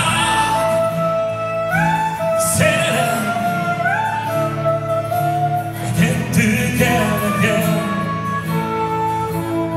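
Live acoustic trio music: a saxophone plays a melody of held notes, sliding up into notes about two and four seconds in, over two acoustic guitars playing chords.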